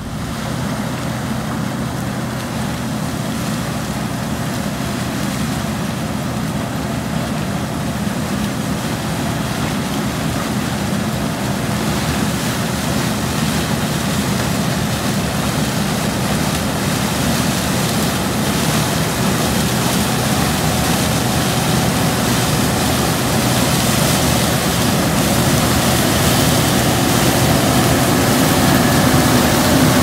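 Case IH 2366 combine running under load while harvesting popcorn: a steady engine hum under the rushing of the header and threshing works, growing gradually louder toward the end as the machine comes closer.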